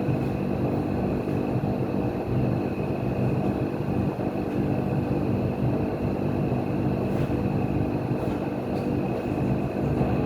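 A steady mechanical hum, like an engine or motor running at an even speed, with a thin high whine over it and a few faint clicks.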